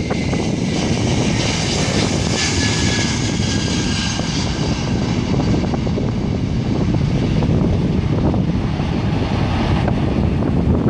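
Jet airliner's engines at takeoff power as it rolls down the runway and climbs away: a loud, steady rumble with a high engine whine that is strongest a few seconds in and then eases.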